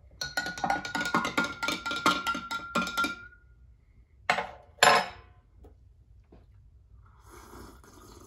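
A spoon stirring a drink in a glass, clinking rapidly against the sides with a ringing tone for about three seconds. Two sharp knocks follow about half a second apart, and near the end there is a soft sound of drinking from the glass.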